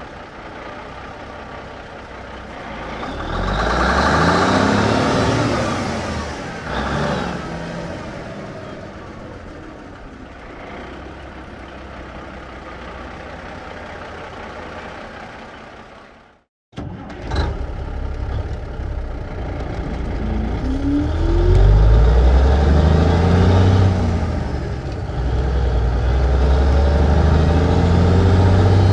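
1954 big rig truck engine running under load, its pitch rising and falling several times as it revs and shifts gears. About sixteen seconds in, the sound cuts out for a moment, then comes back suddenly and loud, with more revving and shifts.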